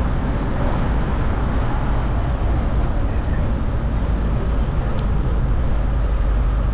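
Steady road-traffic noise with a heavy low rumble, heard from a bicycle riding along a busy city street.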